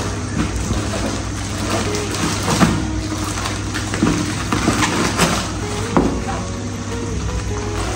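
Soaked cardboard packaging being pulled open and handled by hand: irregular rustling with a few sharp knocks and crunches, about four over several seconds, over a steady low hum.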